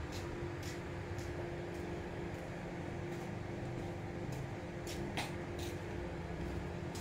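Steady background hum and low rumble with a faint constant tone, broken by a few light clicks, one sharper about five seconds in.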